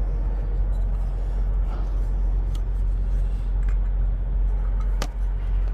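Steady low rumble of an idling heavy-truck diesel engine, with light handling clicks and one sharp click about five seconds in.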